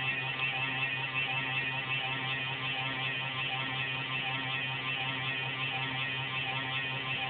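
Desktop computer giving off a steady pulsating whirr over a low hum. This is the odd noise that comes on at random; the owner thinks it is the fan but is not sure.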